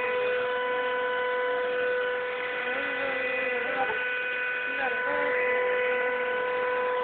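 Home-built CNC machine's stepper motors whining: a steady high hum with overtones, with fainter tones gliding up and down as the motors step.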